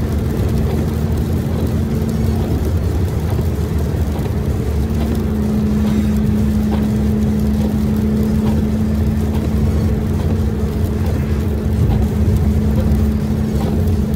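Steady road and engine noise of a vehicle cruising at highway speed on a wet road, heard from inside the cabin, with a constant low hum that grows louder about five seconds in.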